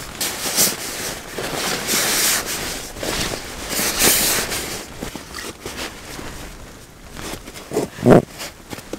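Nylon fabric rustling and swishing as a sleeping bag is stuffed into its stuff sack. A couple of soft thumps come near the end.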